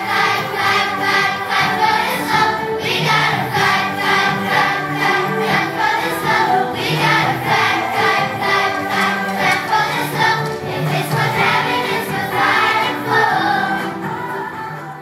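A children's choir singing an upbeat song with musical accompaniment and a steady beat; the song dies away just before the end.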